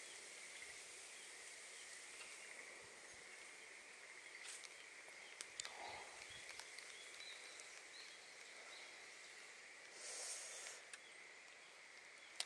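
Near silence: faint outdoor ambience with a steady faint high hum, a few soft clicks and a brief faint hiss about ten seconds in.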